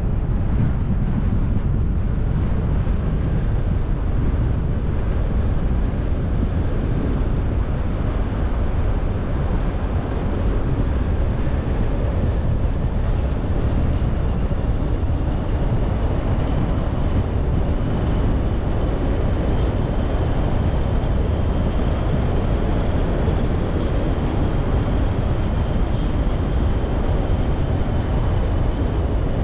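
A car driving: steady low rumble of tyre and road noise that does not change. A faint high whine comes in through the middle part.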